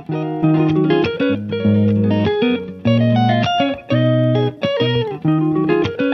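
Background music led by plucked guitar, with low bass notes underneath and a run of quick melodic notes.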